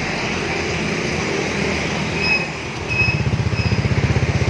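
Honda Vario 150 scooter's single-cylinder four-stroke engine starting through a hollowed-out racing muffler: it catches about three seconds in and settles into an idle with a rapid, even pulsing exhaust beat.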